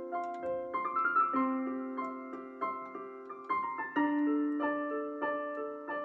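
Solo piano music: notes and chords struck one after another and left to ring.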